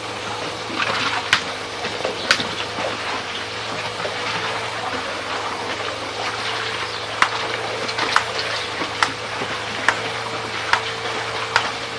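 Diesel-driven arrastra ore mill running steadily: a constant hum and held drone under a rushing, water-like noise. Sharp knocks come twice early on and then about once a second in the later part.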